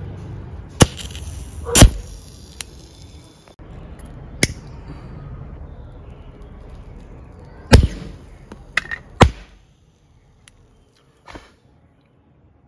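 A homemade match launcher built from a gas lighter firing: a string of sharp clicks and snaps, the loudest about two seconds in and again near eight seconds, with a quick pair around nine seconds.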